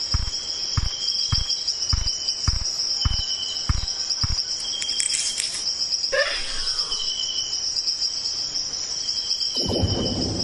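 Crickets chirping steadily in a continuous high trill, with a second insect chirping in short bursts about once a second. For the first four seconds soft low thumps come about every half second, and a brief swooping sound passes about six seconds in.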